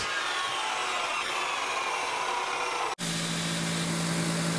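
A metal-cutting chop saw with a toothed steel-cutting blade cuts through quarter-inch round steel bar with a steady hiss and whine. About three seconds in, this cuts off abruptly to a belt grinder running with a steady low hum while the burr is ground off the cut end.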